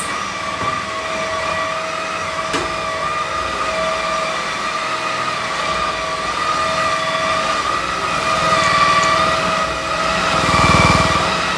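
Cordless vacuum cleaner running steadily, its motor giving a whine that holds its pitch. About ten and a half seconds in, a louder low rumble swells briefly.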